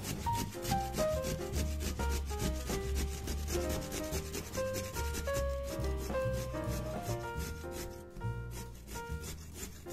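A carrot being grated on a stainless steel box grater: rapid, regular rasping strokes, with a brief pause near the end. Background music with a melody and bass plays underneath.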